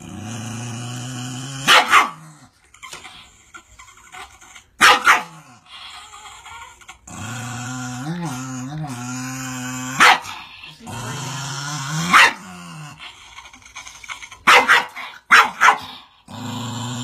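A black-and-white spaniel growls long and low in steady stretches, broken every few seconds by loud, sharp barks, about eight in all. It is making an aggressive display at its own reflection in a mirror.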